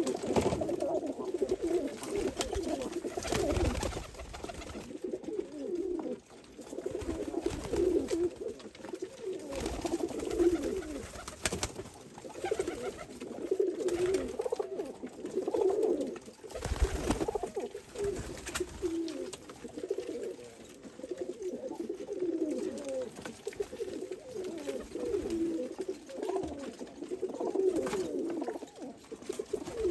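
A flock of domestic pigeons cooing without pause, many birds' calls overlapping. A couple of brief bursts of louder noise come a few seconds in and about halfway through.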